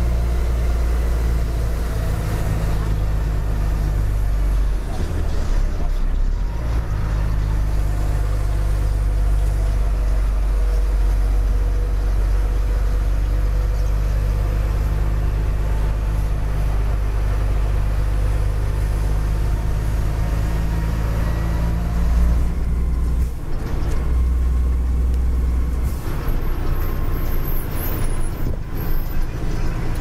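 Heavy 8x4 truck's diesel engine running on the road, heard from inside the cab, a steady low drone whose note drops and changes briefly about five seconds in and again near 23 seconds in.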